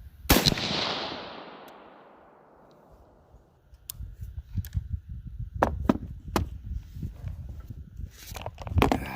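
A single shot from an Anderson AM-15 rifle in 7.62x39, a sharp report echoing away over about two seconds. From about four seconds in come scattered knocks and clicks over a low rumble.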